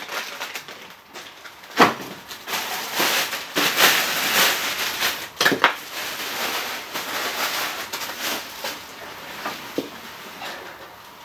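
Rustling and crinkling of packaging as a new chainsaw is unpacked from its cardboard box, with a few sharp knocks and clicks of parts being handled, the first about two seconds in.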